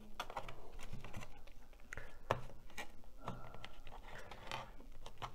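Scattered light clicks and taps of hands fitting wooden model-glider fuselage parts together on a workbench.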